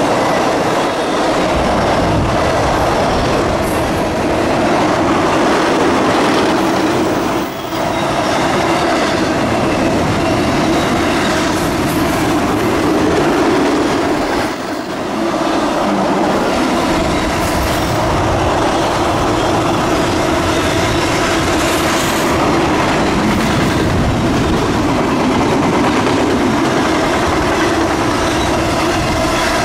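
Freight train cars rolling past with a steady, loud clatter and rumble of steel wheels on rail. It briefly dips in level twice, about a quarter of the way in and again about halfway.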